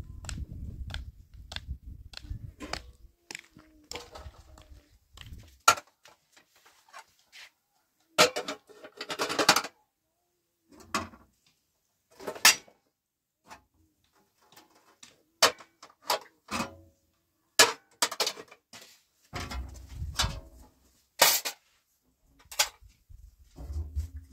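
Metal kitchenware (pots, a spoon, a round tray) knocking and clinking as it is handled and put away, in short, separate clatters. A low rumble fills the first few seconds.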